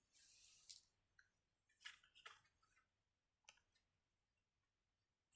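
Near silence, with a few faint, short clicks and a soft rustle.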